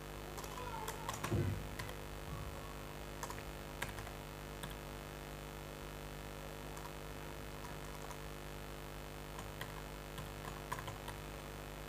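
Computer keyboard being typed on in slow, scattered keystrokes, over a steady low electrical hum. A brief low sound comes a little over a second in.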